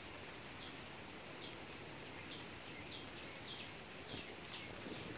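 Faint outdoor background with a bird's short, high chirps, coming irregularly at first and more often toward the end.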